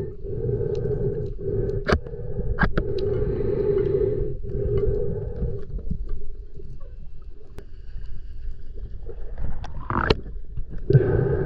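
Underwater drone of a boat's engine and propeller, a steady hum that fades out in the middle and comes back near the end, with a few sharp clicks.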